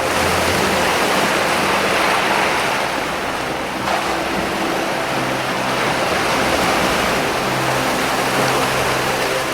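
Ocean waves breaking and washing over rocks: a continuous rushing surf that eases for a moment just before 4 seconds in, then builds again. Under it runs a soft music pad of sustained low tones that shift every few seconds.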